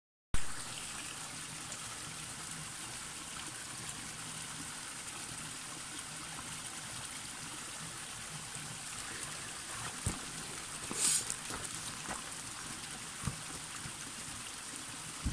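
Small spring water trickling steadily down a mossy rock face into a shallow rivulet, with a few brief splashes and knocks in the last few seconds.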